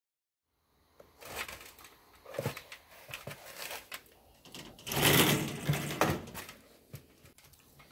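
Footsteps and scuffs of slip-on sneakers on a slatted step stool, with irregular clicks and knocks and a louder rough scraping about five seconds in.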